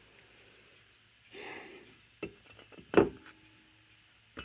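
Tools and small metal carburetor parts handled on a workbench: a short rub, a few light clicks, and one louder metallic clink about three seconds in that rings briefly.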